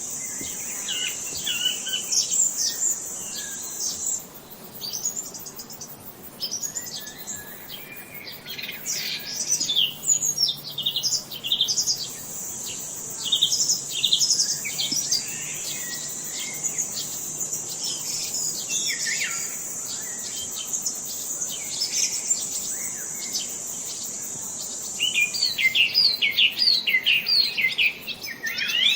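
Songbirds chirping and singing, many quick high chirps overlapping one another. A steady high-pitched trill runs beneath them, drops out about four seconds in, returns around twelve seconds and stops a few seconds before the end, when a burst of rapid chirps takes over.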